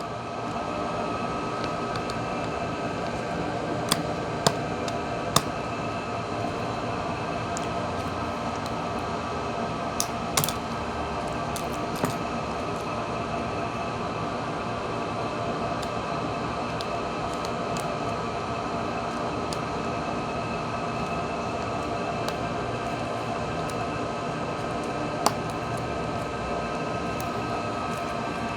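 A steady mechanical hum with several held tones, with about seven light, sharp clicks scattered through it as small phone parts are handled and fitted back into place.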